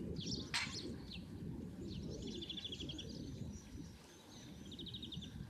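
Songbirds chirping, with two quick high trills of evenly repeated notes, over a steady low outdoor background rumble; a short sharp click comes about half a second in.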